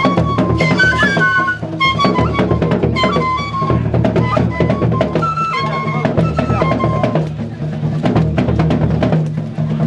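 Traditional Gurunsi drums played in a fast, dense beat. A high melody line above them holds notes and steps from pitch to pitch.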